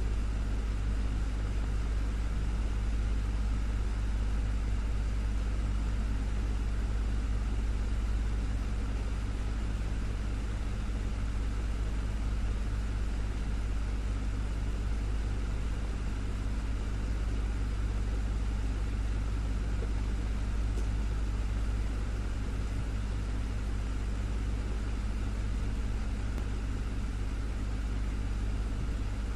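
Desktop fan running steadily, a constant low whirring hum with a faint airy hiss above it.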